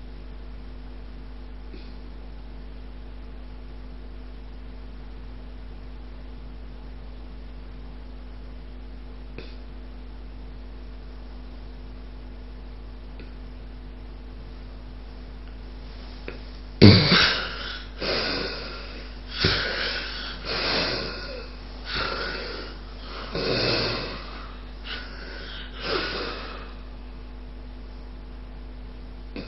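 A sleeper goes without any breath sound for about sixteen seconds, with only a steady electrical hum, then gives a sudden loud snort. A run of about seven quick, noisy breaths follows, each a little over a second apart. This is breathing resuming after an obstructive sleep apnea pause.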